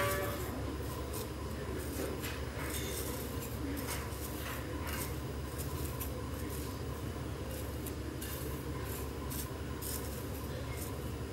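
Chopsticks scraping, stirring and lightly tapping through panko breadcrumbs in a ceramic dish. It makes an irregular scratchy rustle over a steady low hum.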